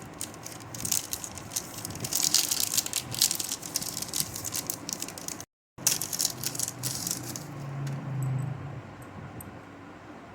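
Metal parts and hand tools clinking and rattling in dense, irregular clatter, broken by a short cut about halfway, with scattered clicks and a brief low hum near the end.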